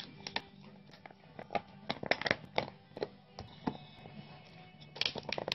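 A series of sharp plastic clicks and crackles as a dog paws at a plastic water bottle, bunched about two seconds in and again near the end, over faint background music.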